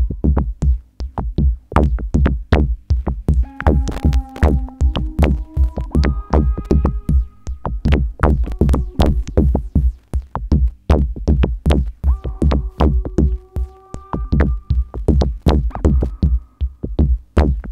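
Live electronic music from a modular synthesizer: a fast, steady percussive beat with heavy deep low end under held synth tones that step to a new pitch every few seconds.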